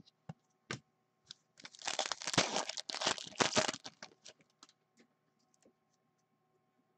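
Foil wrapper of a hockey card pack being torn open and crinkled for about two seconds, with a few light clicks of cards being handled before and after.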